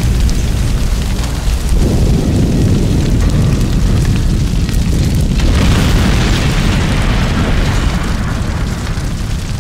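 Recreated sound effects of large fires and bombing: a heavy, continuous low rumble of flames and blasts, with a rushing hiss that swells about halfway through and eases off near the end.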